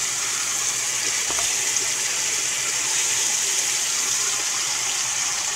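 Steaks searing in hot fat in a frying pan: a steady sizzle with a few faint crackles.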